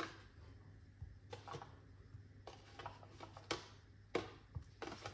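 Light clicks and taps at irregular intervals, about a dozen in all, from hands handling fruit and kitchenware on a worktop.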